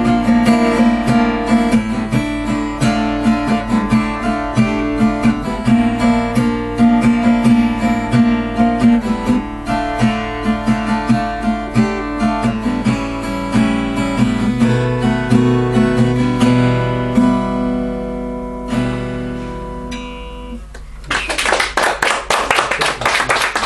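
Acoustic guitar playing the closing instrumental bars of a song and dying away, followed about 21 seconds in by audience applause.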